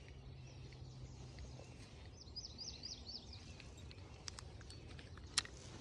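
A songbird gives a quick run of about six falling, high chirps about two seconds in, over faint outdoor background noise, with a few sharp ticks later on.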